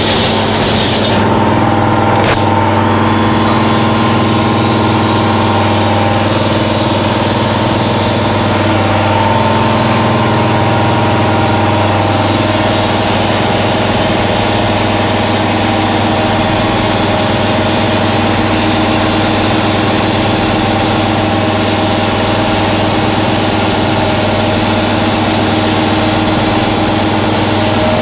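1995 Haas VF-3 CNC mill cutting with coolant spraying: a steady hiss of spray over several steady machine tones. A sharper high hiss, likely from a compressed-air blow gun, cuts off about a second in, and there is a single click about two seconds in.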